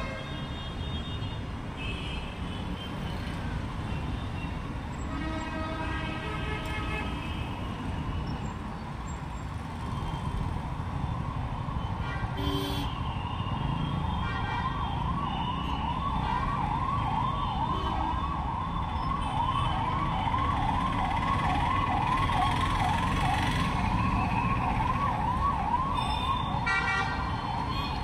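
Busy street traffic rumbling, with a couple of vehicle horns sounding, then from about halfway in an emergency vehicle siren going in fast rising sweeps, about three a second, growing louder as it approaches.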